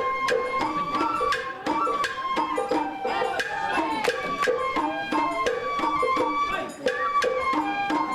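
Sawara bayashi festival music played live: a shinobue bamboo flute carries a melody over quick, steady taiko drum beats.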